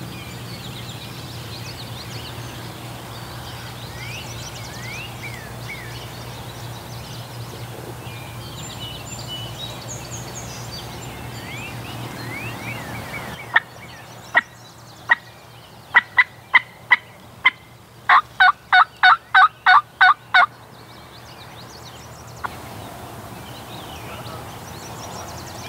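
Songbirds chirping, then about halfway through a run of loud turkey calls close to the microphone: a few sharp single clucks, then a quick string of about ten yelps at some four a second.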